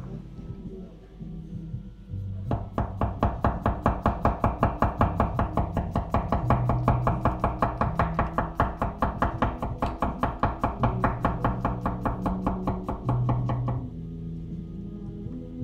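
A 240 mm Yoshiaki Fujiwara gyuto slicing a potato on a wooden cutting board: rapid, even knife strokes against the board, about six a second, starting a couple of seconds in and stopping near the end. Soft background music with low held notes plays underneath.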